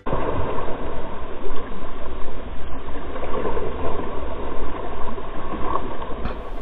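Water rushing and splashing along the hull of a sailing yacht under way, the bow wave breaking against its side in an uneven wash.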